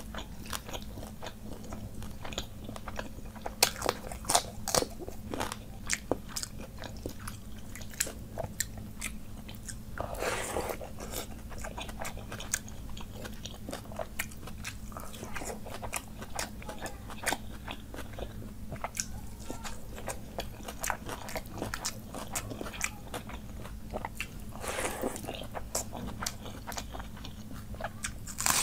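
Close-up eating sounds: crunching and chewing with wet mouth smacks as panta bhat (watery soaked rice) is eaten by hand with fried fish, omelet and raw red onion, many quick crunches through the whole stretch. Two longer noisy sounds come about ten seconds in and again near the end.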